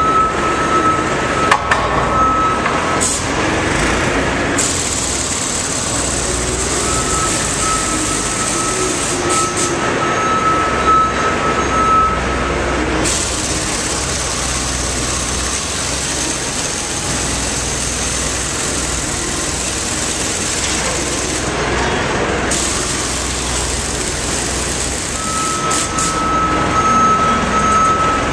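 Reverse alarm beeping over a running forklift engine while the forklift tows a fire ladder truck by chain. The beeping stops through the middle stretch, where a steady hiss takes over, and starts again near the end.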